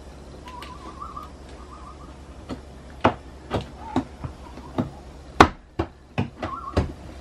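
Sharp knocks and taps on wooden trim and panelling as a piece of trim is pressed and tapped into place, about ten in a few seconds, one loudest in the middle. A faint warbling whistle comes and goes.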